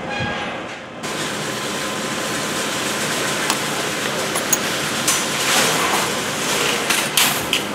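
Metal wire shopping cart rattling as it is handled and rolled, with scattered clanks.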